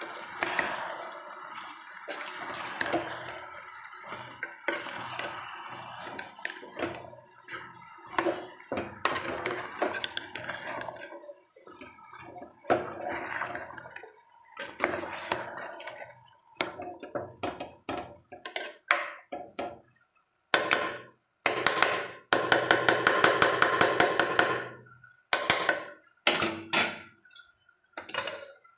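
Metal utensils clattering and scraping in a pressure cooker as vegetables are cooked, with the fenugreek sticking to the pot. The knocks come in short runs, and there is a fast rattling scrape for a few seconds near the end.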